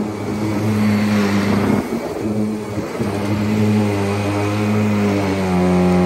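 Kirby upright vacuum cleaner running as it is pushed over sawdust on a carpet. It makes a loud, steady low hum that dips and shifts in pitch every second or two, with a rush of air and grit above it.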